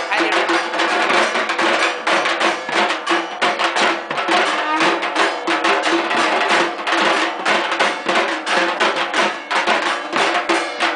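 An ensemble of dhak drums beaten together with thin sticks in a fast, dense, unbroken rhythm.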